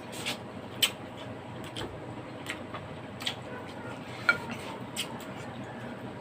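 Cutlery clinking against dishes while eating, with scattered small clicks. Two sharper clinks stand out, about a second in and just past four seconds in, and the second one rings briefly.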